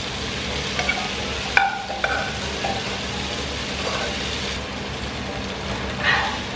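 Boiled spaghetti sizzling as it is tipped from a pot into a hot frying pan of sautéed garlic and chilli, with a few short ringing clinks of metal cookware about one and a half and two seconds in and again near the end.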